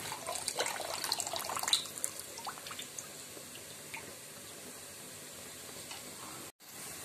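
Spoonfuls of washed rice tipped into a wide pan of hot salted water, with small splashes and clinks in the first two seconds, then a steady faint hiss.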